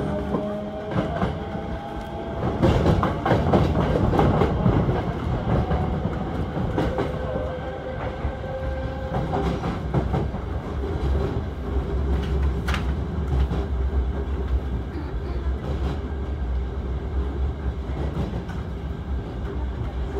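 Hankyu electric train running, heard from inside the front car: wheels clattering over rail joints and points, heaviest about two to five seconds in, over a steady rumble. A faint motor whine rises slowly at first, then holds nearly level as the train cruises.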